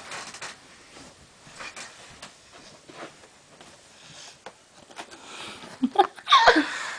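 Soft rustling of bedding and scattered small knocks as someone moves about on a bed, then louder handling noise about six seconds in, with a couple of short squeaky sounds that slide up and down in pitch.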